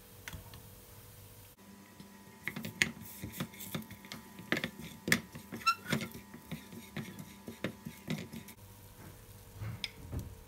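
Dishes and cutlery clinking and knocking in a quick, irregular series of sharp clicks, some with a short ring, for about seven seconds, with a couple more clinks near the end.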